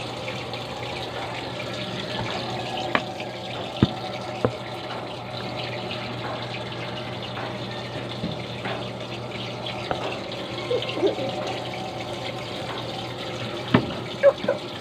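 Steady running water with a low steady hum under it, broken by a few sharp knocks: a couple about three to four seconds in and two near the end.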